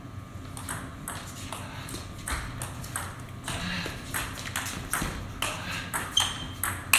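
Table tennis rally: the celluloid-type ball clicking sharply off the bats and bouncing on the table. It is a quick, even run of clicks, about two to three a second, starting about half a second in.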